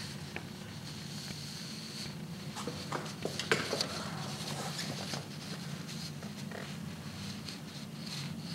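Handling noise from a sheet of drawing paper being shifted and lifted on a desk: scattered light rustles and taps over a steady low hum.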